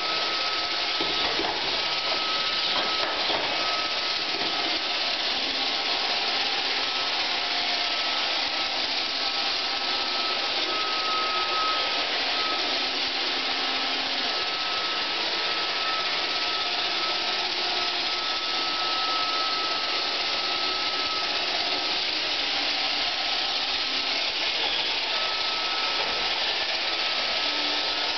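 iRobot Roomba 520 robot vacuum running as it cleans a hard floor: a steady whirring hiss from its vacuum motor and brushes, with a thin, steady whine above it that drops out for a few seconds near the end.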